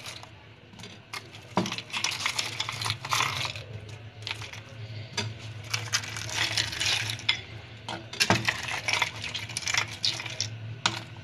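Ice cubes clinking and rattling against glass bowls as they are taken out of one bowl by hand and dropped into another holding watermelon pieces in syrup, with sharper knocks about one and a half seconds in and again near eight seconds.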